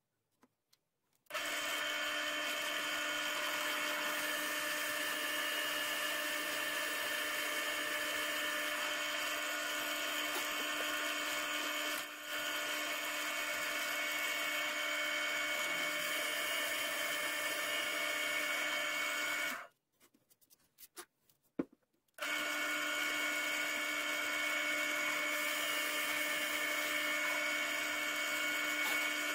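Pillar drill running steadily with a Forstner bit, boring recesses for bolt heads in a wooden board. About two-thirds of the way through it stops for a couple of seconds, with a few clicks, then starts up again.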